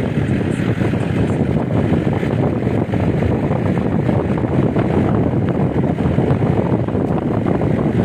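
Wind buffeting the microphone of a phone filming from a moving vehicle, over a steady rumble of road and engine noise.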